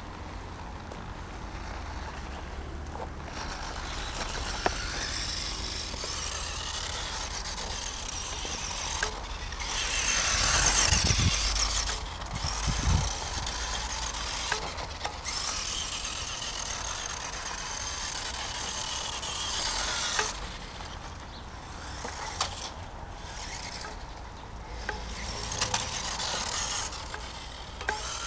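Tamiya Holiday Buggy radio-controlled electric buggy driving on hard snow: its motor and gears whine in spurts as the throttle is worked, with its tyres scrabbling over the crust, easing off briefly several times and loudest about ten seconds in.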